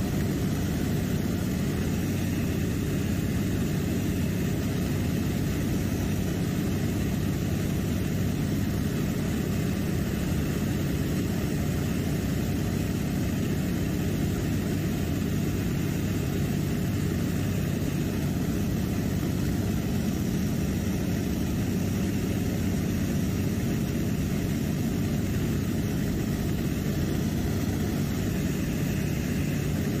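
Steady drone of a propeller seaplane's engine and propeller in cruise, heard from inside the cabin.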